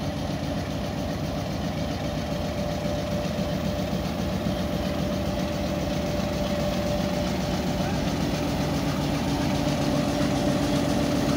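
Diesel engine of a Pakistan Railways HBU-20 diesel-electric locomotive idling steadily, a continuous low hum with a few steady tones, growing slightly louder near the end.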